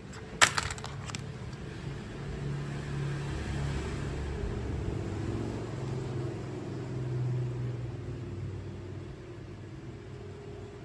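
A sharp clack about half a second in as phones are handled and knock together. After it comes a low engine-like rumble that grows louder over a few seconds and then fades.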